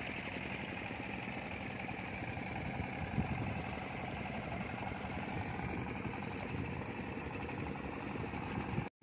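Small fishing-boat engines running steadily out on the water, cutting off abruptly for a moment near the end.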